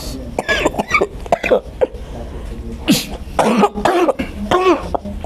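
A woman coughing repeatedly in a series of short, harsh, partly voiced coughs: a long-standing, persistent cough.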